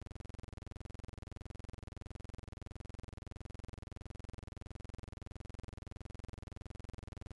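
Steady electronic drone with a fast, even pulse that never changes in pitch or rhythm.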